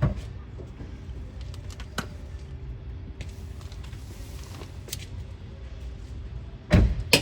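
Work handling noise over a steady low rumble: a few light clicks, then a heavy knock near the end.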